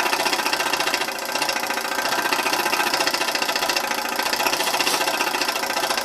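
Small 1960s MLI model steam engine running at speed with a fast, even, steady chuffing beat as it drives a model helicopter.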